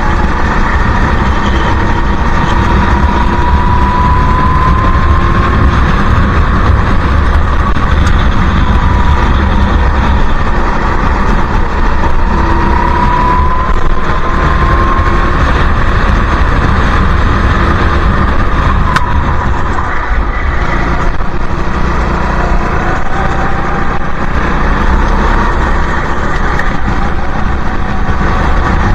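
Go-kart engines at race speed, heard from on board the kart: the engine note climbs slowly along the straights and falls back for the corners, several times over, under a heavy low rumble.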